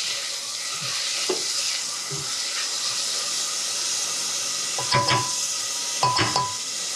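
Diced onions and garlic sizzling in hot oil in a stainless steel saucepan, stirred with a silicone spatula that scrapes against the pan.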